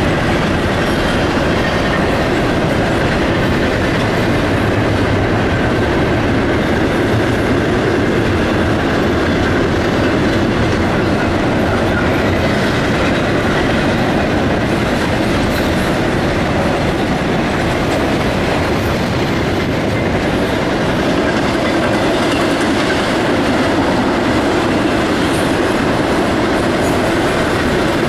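Double-stack intermodal freight train's well cars rolling past on a steel girder bridge: a steady, loud run of wheel and rail noise that does not let up.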